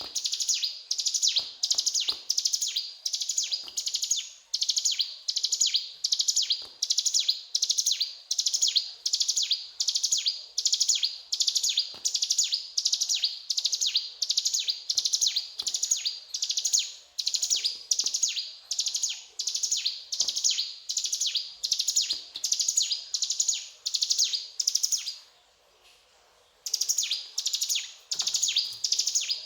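A mountain prinia ('ciblek gunung') singing hard: short, high, rattling phrases repeated about twice a second. The song stops once, briefly, about 25 seconds in, then starts again.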